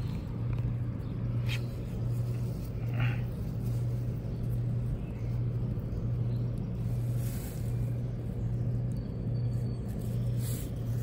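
A steady low mechanical hum with a regular slow pulse, with a few faint rustles of hands moving through grass.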